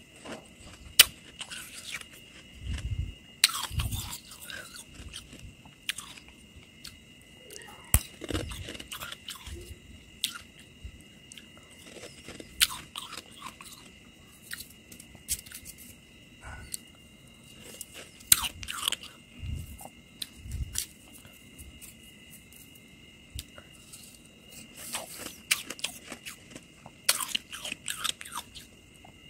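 Biting and chewing of soft, slushy freezer frost: irregular crunches, some close together and some a few seconds apart, with quieter chewing between.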